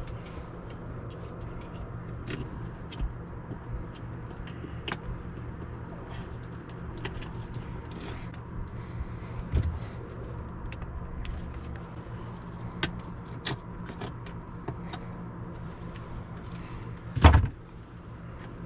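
Light clicks and knocks of hands refitting a rubber hose grommet and putting the motorhome's water-hookup compartment back together, with one louder knock near the end, over a steady low hum.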